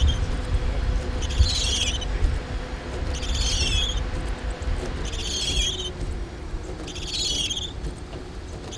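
Wind buffeting the microphone as a steady low rumble. A short, high, pulsed chirp repeats about every two seconds over it.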